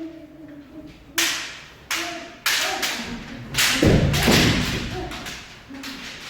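Kendo practice: sharp strikes of bamboo shinai and stamping footwork on a wooden floor, several hits over a few seconds, with short shouts between them.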